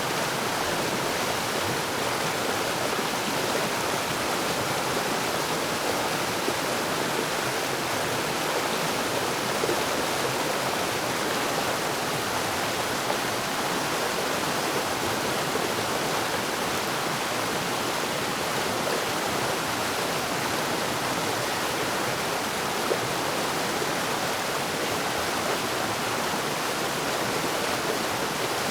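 Forest waterfall: water falling and splashing in a steady, even rush that does not change.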